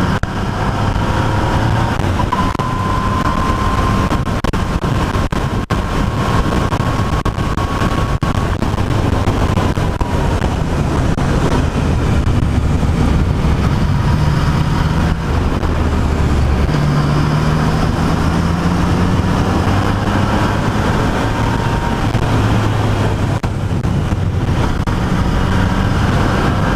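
Yamaha XSR900's three-cylinder engine running under way, its note gliding up in pitch several times as it pulls through the gears, with wind rush over the bike-mounted microphone.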